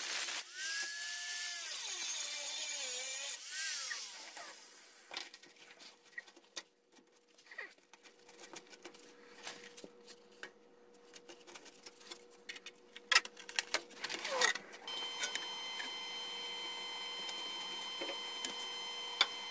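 Harbor Freight angle grinder cutting into the thin steel of a truck's gas tank strap mount, its whine dipping and rising as it loads, then winding down about four seconds in. Scattered clicks and taps of tools being handled follow, and a faint steady hum sets in near the end.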